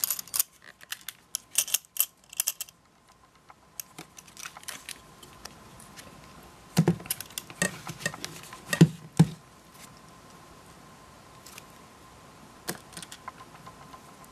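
Clicks and small metallic rattles as a DSLR fitted with a leather hand strap, with its metal buckle and strap fittings, is handled and turned over. A few louder knocks come about seven to nine seconds in.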